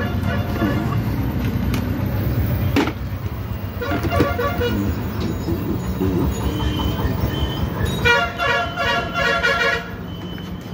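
Steady road-traffic rumble with vehicle horns honking several times, the longest run of honks about eight to ten seconds in.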